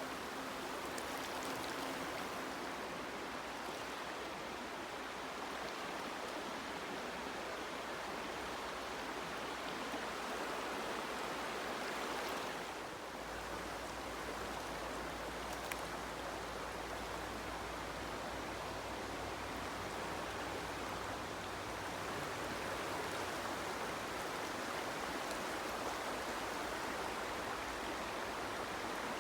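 Stream water running steadily, with a change in the low rumble about halfway through.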